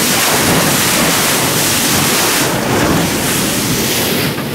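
Water rushing and splashing along the hull of a moving fishing boat, with wind buffeting the microphone.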